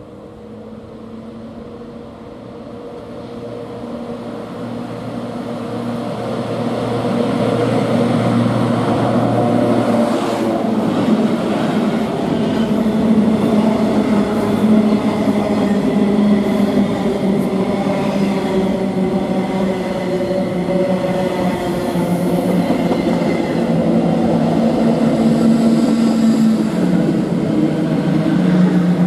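Class 92 electric locomotive approaching and passing with a steady electric hum that grows louder over the first several seconds, then the steady rumble and clatter of a long rake of empty flat freight wagons running past.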